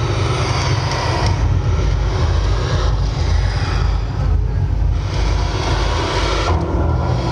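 Soundtrack of a video-mapping projection show played over loudspeakers: a deep, loud rumble with waves of hissing noise that swell and fall back about four times.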